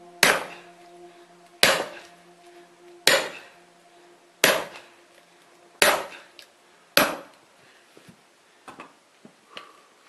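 An axe splitting firewood: six hard strikes into the log, about one every second and a half, followed by a few lighter knocks near the end as the split wood is handled.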